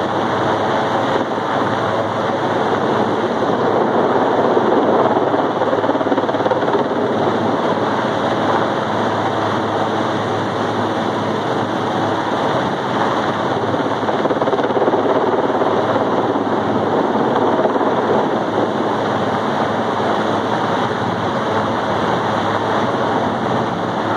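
Helicopter hovering overhead: a steady, loud rotor chop and turbine noise that holds level throughout.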